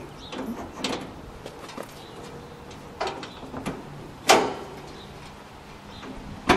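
A few separate metal clicks and clunks from hands working the hood-release latch behind the grille of a 1961 Chrysler New Yorker, the loudest about four seconds in.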